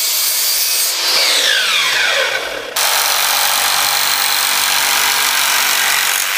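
Drop saw cutting a laminate floorboard, its motor winding down with a falling whine about a second in. Then, after an abrupt change, a Makita 4304 jigsaw runs steadily, cutting through laminate flooring.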